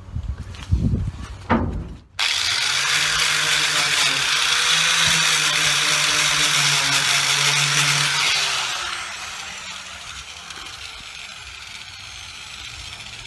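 Handheld electric angle grinder run against the steel of a car door hinge where a bolt has been welded: a few knocks of handling, then the grinder starts abruptly about two seconds in, runs steadily for about six seconds and winds down as it is switched off.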